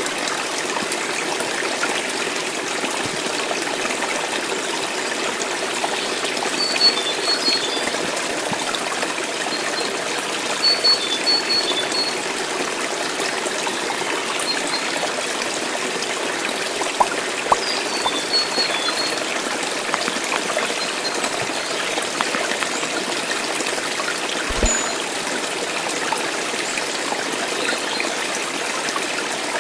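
Water trickling and running steadily, with a few faint high chirps a handful of times.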